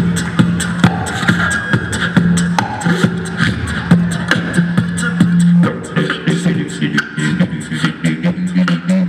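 A beatbox crew performing live through a PA system: fast sharp mouth-percussion clicks and snare-like hits over a held low vocal bass tone, which turns choppy about two-thirds of the way through.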